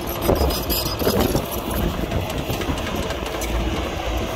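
Heavy diesel engine of earth-moving machinery running steadily with a low rumble.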